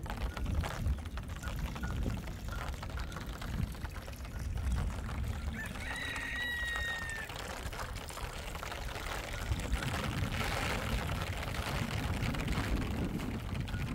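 Wind rumbling on the microphone, with water from a hose trickling into a metal trough. About six seconds in, a bird gives a single drawn-out high call.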